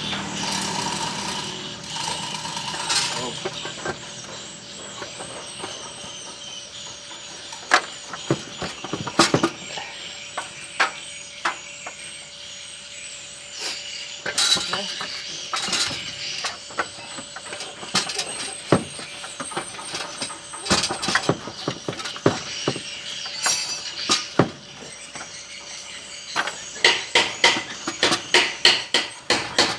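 Scattered metallic knocks and clanks of tools and parts during engine installation. Near the end comes rapid, even hammering, about three blows a second.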